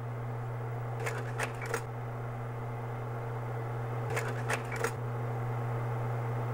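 Steady hum of a slide projector, with short clusters of three or four mechanical clicks about every three seconds as slides change.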